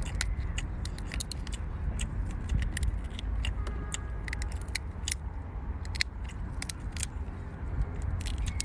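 Shell of a large cooked prawn cracking and crackling as it is peeled apart by hand, many small sharp clicks, over a steady low rumble.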